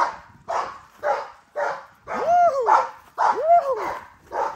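American bully puppies barking in quick play barks, about two a second, many rising and falling in pitch, while they pull at a rope toy.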